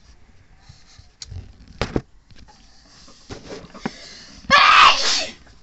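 A small souvenir baseball handled close to the microphone: faint rubbing and a few sharp taps. Near the end comes a loud, harsh burst of noise lasting under a second.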